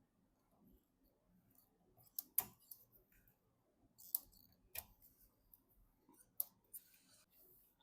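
Scattered light clicks and taps of computer parts being handled and fitted during a PC build: a few quick ones about two seconds in, then single clicks spaced a second or so apart.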